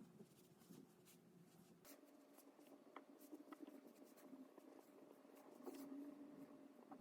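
Faint writing sounds, very quiet: a pen scratching and lightly tapping on a writing surface.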